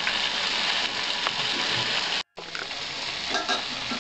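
Mixed vegetables with ghee just added, sizzling in a kadai on the gas: a steady hiss. It cuts out for a moment just past halfway, then comes back, with a few spatula scrapes of stirring near the end.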